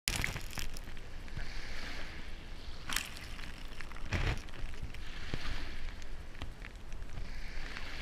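Small surf waves washing up and draining back over a shelly sand beach close to the microphone, the hiss of the wash swelling and fading every couple of seconds. A few sharp splashes stand out, the loudest a little after four seconds in.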